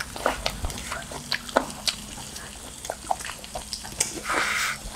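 Slices of pork belly sizzling on a tabletop grill plate: a steady hiss with scattered crackling pops, and a short louder burst of hiss a little after four seconds in.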